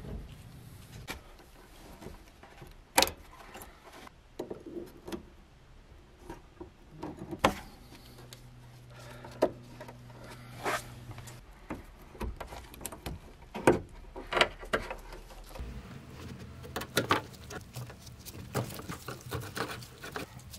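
Irregular clicks, taps and knocks of hand tools and metal car parts being handled: a car battery being fitted, then the screws of a fuel pump access cover being worked with a screwdriver. A faint low hum holds for a few seconds midway.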